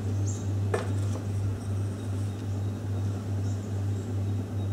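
A steady low hum that pulses gently, with one light click about three-quarters of a second in.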